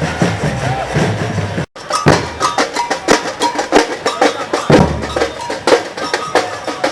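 Marching band drums and percussion playing in a street procession. After a brief break about 1.7 s in, the sound turns to many sharp, irregular cracks and knocks.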